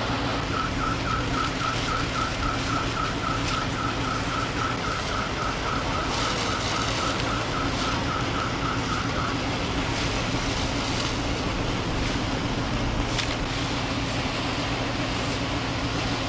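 Steady engine hum with a rapid electronic beeping, several beeps a second, that stops about nine seconds in.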